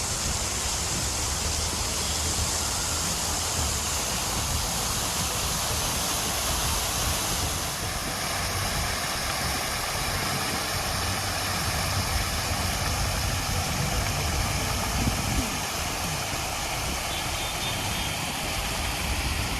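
City street traffic: vehicle engines running and idling under a steady wash of traffic noise.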